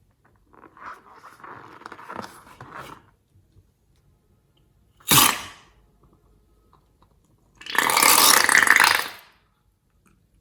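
Slime being worked by hand with crackling, squelching noises, then one sudden sharp pop about five seconds in, and a loud hiss lasting about a second and a half near the end.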